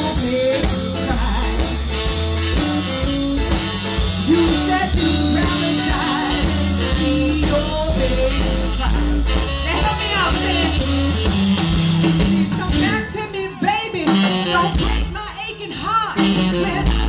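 Live blues band playing on an outdoor festival stage: electric bass, drums, keyboards and electric guitar, heard from within the audience. The low end drops away for a few seconds late on, then returns.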